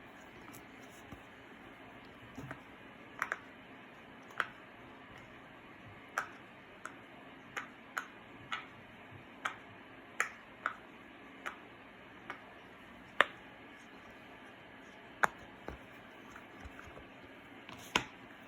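Sharp, short clicks and taps at irregular intervals, roughly one a second, over a faint steady hiss, from hands-on slime making.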